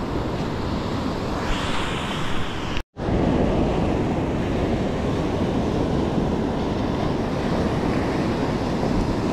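Ocean surf washing onto a beach, with wind rumbling on the microphone. A wave's hiss swells about a second and a half in, and the sound drops out for an instant just before three seconds in.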